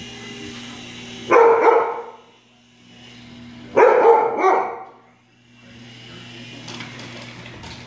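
Siberian Husky puppy barking twice, about two and a half seconds apart.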